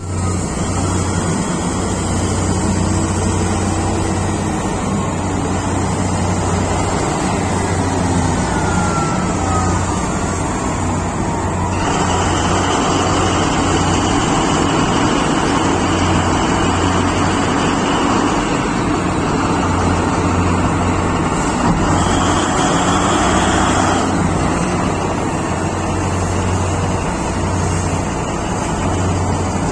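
Caterpillar 777D mining haul truck's big diesel engine running with a deep, steady drone as the truck manoeuvres. A high steady whine joins in from about twelve seconds in and drops away about twenty-four seconds in.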